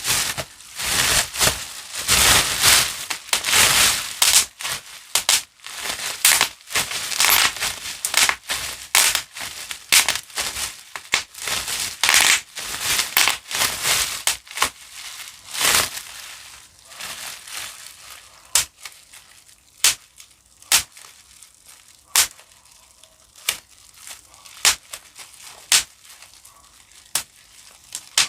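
Plastic bubble wrap being popped. It starts as dense crinkling full of rapid pops, and about halfway through it thins to single sharp pops about one a second.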